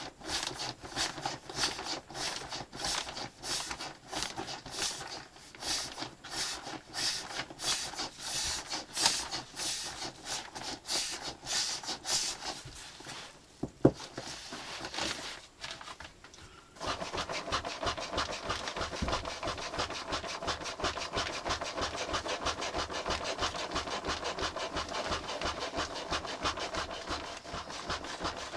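Hand saw cutting wood in steady back-and-forth strokes, about two a second. It pauses briefly about 13 seconds in, with one sharp knock, then resumes with quicker, shorter strokes.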